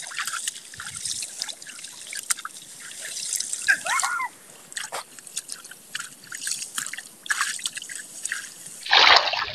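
Shallow muddy paddy-field water splashing and trickling in many small irregular strokes as a man wades and works his hands through it.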